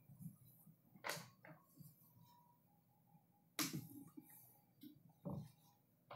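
Near silence, broken by three faint clicks or knocks: about a second in, at three and a half seconds (the loudest), and just past five seconds.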